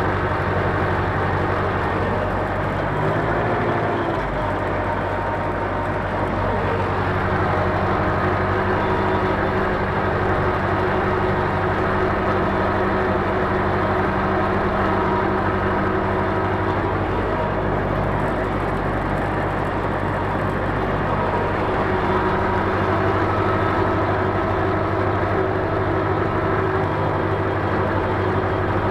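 Ursus C-4011 tractor's diesel engine running steadily under way, heard from inside the cab.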